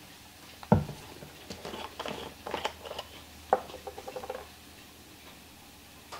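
A sauce bottle being opened by hand: a sharp knock about a second in, then a run of small clicks and a brief ratcheting creak as the plastic cap is twisted off.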